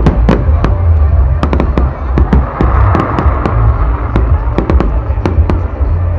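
Fireworks display going off: a dense, irregular run of sharp bangs and cracks, about four a second, over a steady low rumble.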